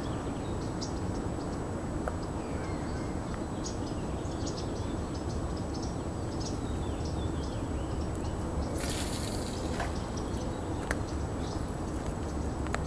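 A fishing rod being cast: a brief hiss of about a second, around nine seconds in, that fits line paying off a spinning reel. Behind it are a steady low rumble and faint scattered clicks.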